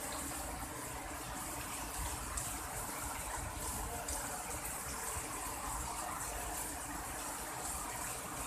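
Heavy rain falling steadily, a dense even hiss of drops splashing on wet concrete and leaves, with a low rumble underneath.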